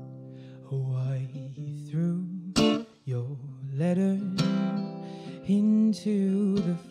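A male singer performing a slow song, accompanied by his own plucked small-bodied acoustic guitar; the voice comes in a little under a second in, over sustained guitar notes.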